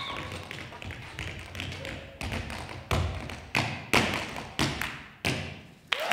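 Tap shoes striking a stage floor in an unaccompanied tap solo: quick light tapping, then from about two seconds in a slow series of about seven heavy, evenly spaced strikes, each ringing out in the hall.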